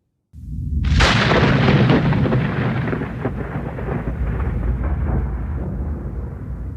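Thunder: a low rumble sets in, then a sharp close crack about a second in, followed by a long rolling rumble that slowly fades.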